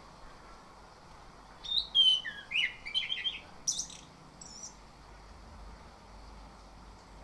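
Orange-headed thrush singing one quick phrase of varied warbling whistles and high chips, starting about a second and a half in, then a single short note before a pause.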